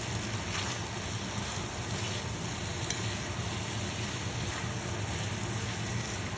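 Tofu and portobello mushrooms sizzling steadily in a frying pan, with stir-fry sauce just poured in, over a low steady hum.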